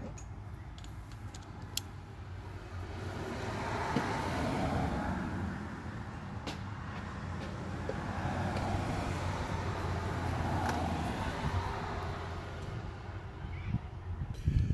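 Road traffic noise from a passing vehicle, a steady rumble that swells, dips and swells again before fading, with a few light clicks.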